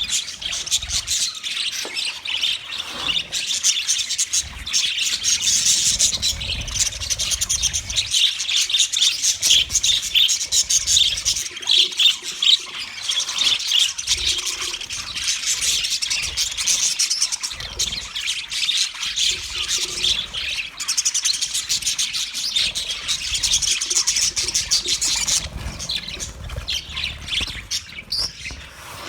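Budgerigars chattering, with a continuous run of high chirps, warbles and squawks.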